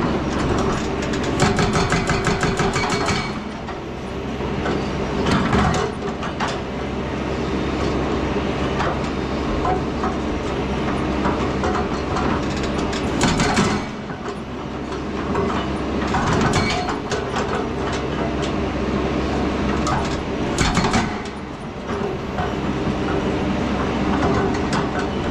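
Excavator's diesel engine running steadily under load, with several bursts of rapid metallic clanking and rattling from the machine's steel parts.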